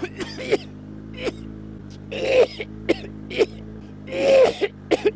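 A man coughing uncontrollably in a fit of about a dozen sharp coughs, two of them longer and louder, hacking ones. This is the fit that comes on when he first puts his motorcycle helmet on in the morning. A Yamaha FZ1N motorcycle engine idles steadily underneath.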